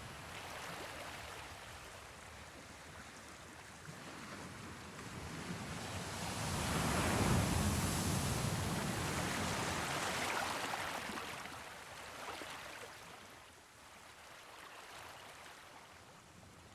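Sea waves washing, one long swell of surf rising about six seconds in and fading away after about eleven seconds.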